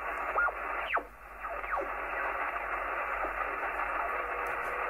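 Receiver audio from a Kenwood TS-430S HF transceiver being tuned down through the 40-metre band: steady band hiss with a few falling whistles as signals sweep past the tuning, the clearest about a second in.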